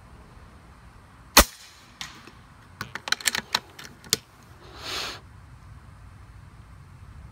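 A single sharp shot from a .25 calibre Rapid Air Weapons PCP air rifle about a second and a half in, followed by a faint tick. Then comes a quick run of metallic clicks as the action is cycled to load the next pellet, and a short breath out near the end.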